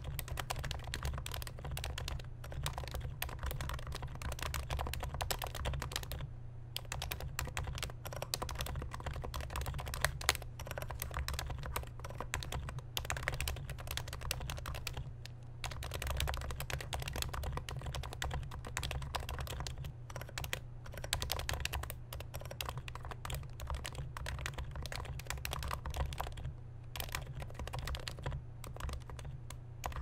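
Continuous typing on a Norbauer Norbatouch, a Topre electro-capacitive keyboard with lubed switches, silencing rings and MT3-profile keycaps, giving quick muted keystrokes with a few brief pauses. The builder still hears a high-pitched note on the upstroke and suspects overlube or the 45 g domes.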